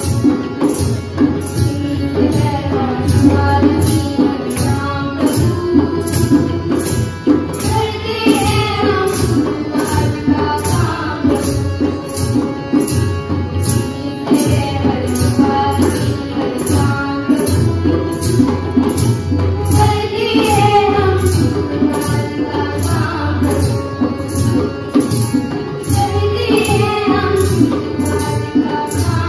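Group of girls singing a song together, with a drum beat in tabla style and a jingling percussion keeping time about twice a second.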